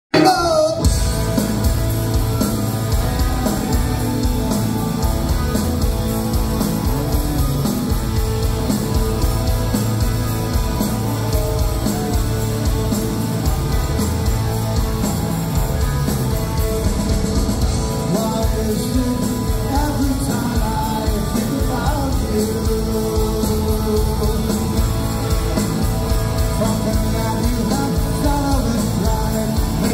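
Rock band playing live through the hall's PA: electric guitars, bass guitar and drums with a male lead singer, heard from within the crowd.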